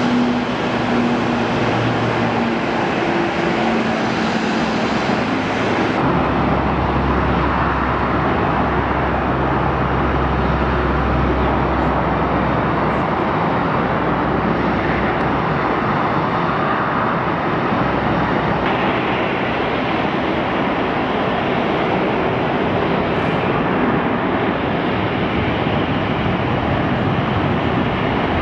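Turboprop engines of a C-130 Hercules running, first a steady propeller hum while it taxis, then a deeper, louder rumble as it powers up on the runway. Later the engine noise is a steady airliner drone, and the sound changes abruptly at edits.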